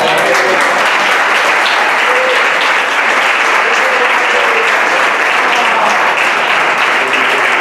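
Audience applauding: dense, steady clapping from a roomful of people that starts abruptly, with a few voices faintly under it.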